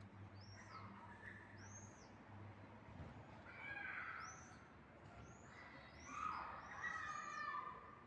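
A domestic cat meowing a few times: a faint call about a second in, a louder one about four seconds in, and a long drawn-out meow near the end. Small birds chirp in short high arched notes throughout.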